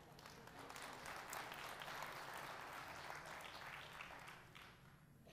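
Congregation applauding faintly, building up soon after the start and dying away near the end.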